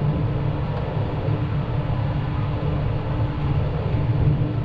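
Farm vehicle engine running steadily: a low, even drone with a faint steady hum above it.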